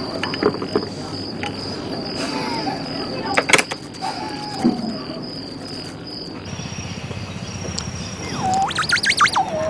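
Night insects trilling steadily at a high pitch over frog calls, with a sharp click about three and a half seconds in; the trill stops about two thirds of the way through. Near the end a man whistles through his hands at his mouth, a call that swoops rapidly up and down several times before settling on a low note.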